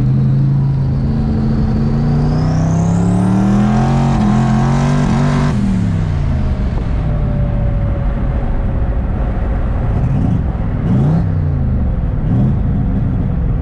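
Twin-turbo Mustang SVT Cobra's 4.6-litre V8 pulling hard through a gear, heard from inside the cabin, its revs climbing with a rising high whistle from the turbos. About five and a half seconds in the throttle is lifted and the revs fall away, with a shorter rise and fall again later on.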